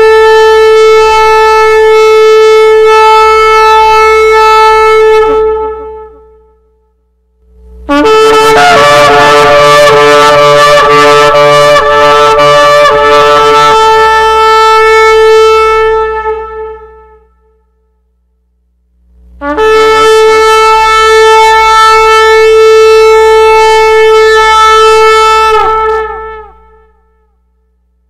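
Shofar blown in three long, steady blasts with short silences between them. The first is already sounding and ends about six seconds in. The middle blast is ragged and wavering in its first half, then steadies.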